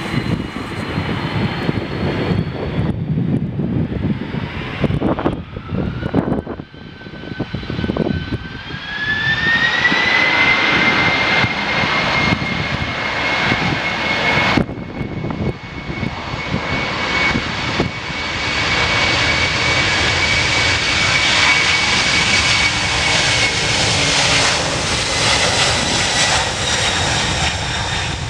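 Boeing 767's jet engines spooling up to takeoff power: a whine rising in pitch about eight to ten seconds in, then holding steady and loud as the airliner accelerates down the runway, easing slightly near the end.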